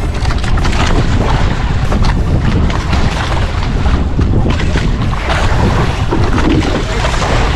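Fishing boat under way: its motor runs steadily while wind buffets the microphone.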